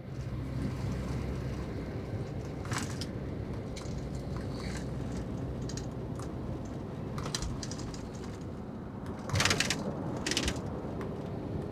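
Inside the cabin of a double-decker bus cruising on an expressway: a steady low drone of engine and road noise, with scattered light clicks and rattles, loudest in a short cluster about nine and a half seconds in.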